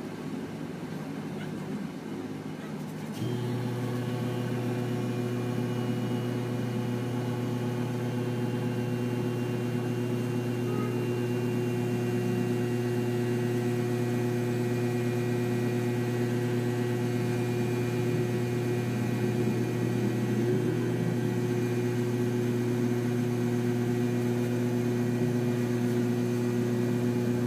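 A steady machine hum, one low droning pitch with overtones, comes on about three seconds in and holds unchanged.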